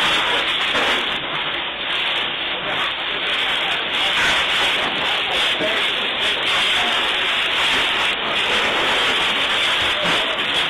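A burning timber building being doused by a fire hose: a steady, loud rushing noise of water spray and flames with no pauses.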